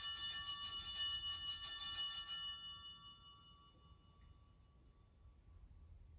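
Altar bells shaken rapidly, a bright high jingle of several tones, for about two and a half seconds, then left ringing out and fading away. They are rung to mark the elevation of the consecrated host.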